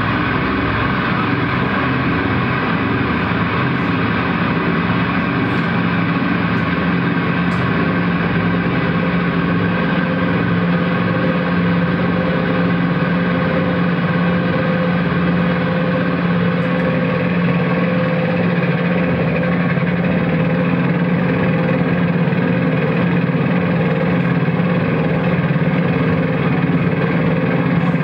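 Looped electric guitar through effects, forming a dense, steady ambient drone of several held tones with no beat.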